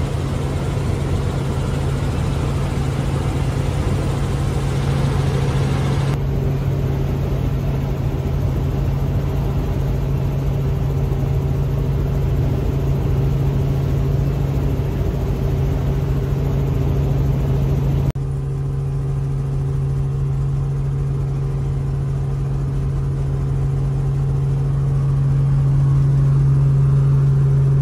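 Helicopter in flight heard from inside its cabin: a loud, steady low drone of engine and rotor. The sound changes abruptly twice and grows a little louder near the end.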